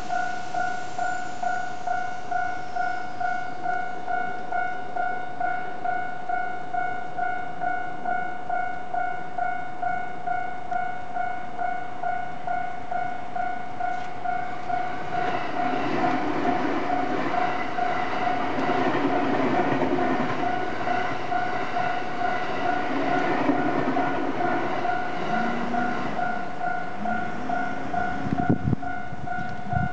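Japanese level-crossing warning bell ringing in an even, repeating rhythm throughout. About halfway through, a Keikyu limited express train passes over the crossing, its wheels and running gear adding a loud rumble for about ten seconds before it fades; near the end come a few rising-and-falling tones and a single sharp thump.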